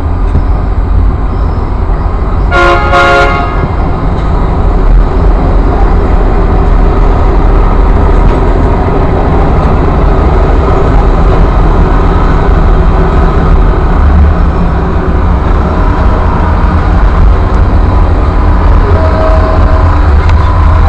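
Train rolling along, a steady heavy rumble with wind buffeting the microphone on the open caboose platform. About two and a half seconds in, a train horn gives a short two-part toot.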